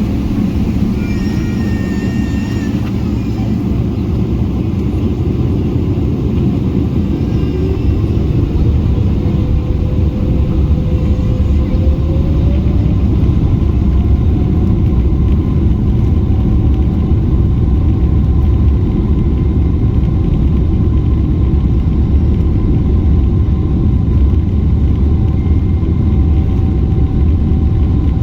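Cabin noise of a Boeing 777-300ER on the ground: a steady low rumble from the engines and the aircraft rolling. A faint whine rises in pitch about ten seconds in and then holds steady.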